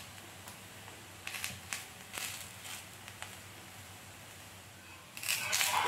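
Faint crackling of a rice rotti cooking in oil on a hot iron tawa, a few light ticks in the first half, then near the end a louder scrape of a steel spatula against the tawa as it works under the rotti.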